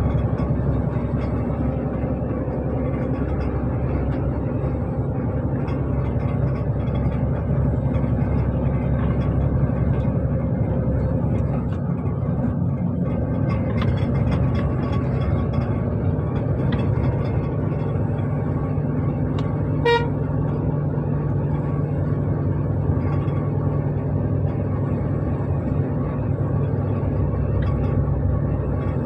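Leyland lorry's diesel engine running steadily on the highway, heard from inside the cab, with one short horn toot about twenty seconds in.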